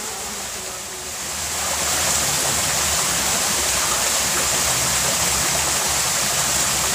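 Shallow rocky stream rushing steadily over stones, growing louder about two seconds in.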